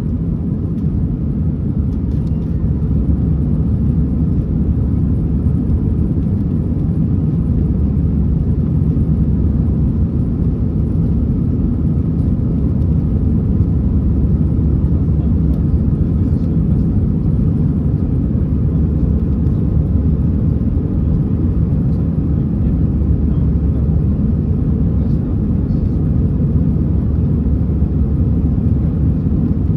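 Steady, even low rumble inside the passenger cabin of an Airbus A321-211: the drone of its CFM56-5B engines and the airflow around the fuselage, as heard from a window seat.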